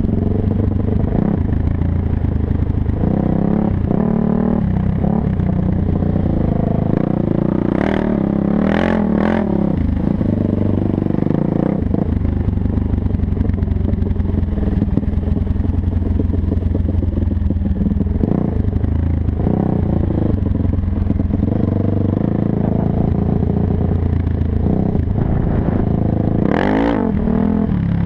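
Off-road motorcycle engine running under load while riding through soft sand, its revs rising and falling with the throttle. It revs sharply about eight seconds in and again near the end.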